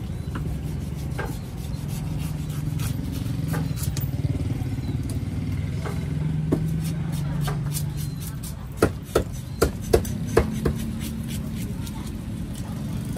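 Knife working through a large tuna on a wooden chopping block: light scrapes and clicks of the blade, then about six sharp chops in quick succession about two-thirds of the way through as the blade is hacked down behind the head. A steady low engine hum runs underneath.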